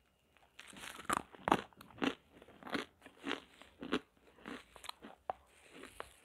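A person biting and chewing pieces of roasted nakumat (edible clay): a string of crisp, dry crunches, roughly two a second, starting about half a second in.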